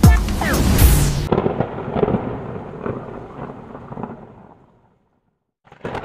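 Background music ending on a deep boom sound effect whose noisy, thunder-like tail fades out over about four seconds. After a moment of silence, a short burst of noise starts near the end as an animated logo sting begins.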